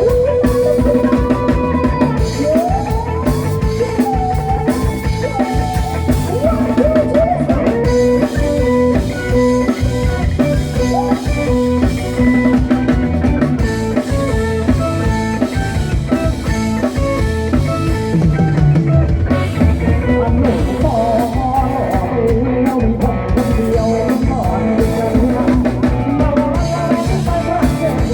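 Band music with a drum kit and guitar playing an upbeat rock-style piece, with a lead melody that slides in pitch.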